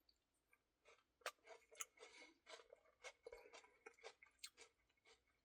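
Quiet chewing of a Dairy Queen Ultimate Cookie Blizzard: soft, irregular wet mouth clicks and small crunches of cookie pieces.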